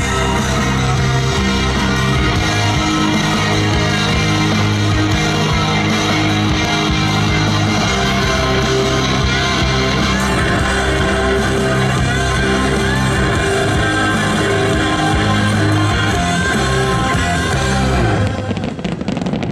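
Rock music with singing and guitar; it stops near the end.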